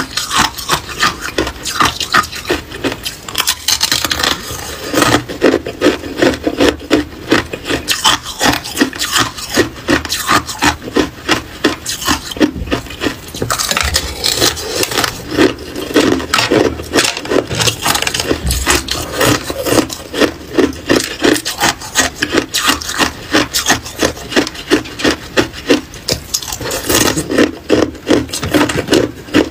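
Hard ice being bitten and chewed: a dense, unbroken run of loud, gritty crunches as the ice ring breaks up between the teeth.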